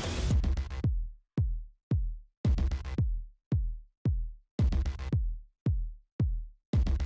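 Electronic background music built on a drum-machine beat: deep kick-drum thuds, each dropping in pitch, about two a second, with stretches where fuller drums and other sounds fill in between.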